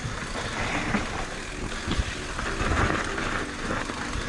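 Mountain bike riding fast down a dirt singletrack: knobby tyres rolling over dirt and stones, with the bike knocking over bumps a couple of times.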